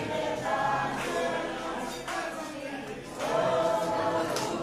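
A group of people singing together, several voices at once, swelling louder about three seconds in.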